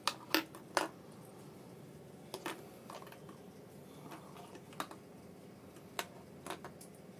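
Plastic toy kitchen utensils being set down and handled, giving about six light sharp clicks at irregular intervals, two close together near the start.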